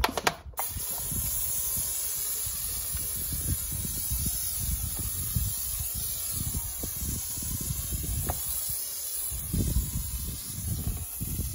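Kwazar Venus hand-pumped foam sprayer discharging shampoo foam: a steady pressurised hiss that starts about half a second in, with irregular low rumbling underneath.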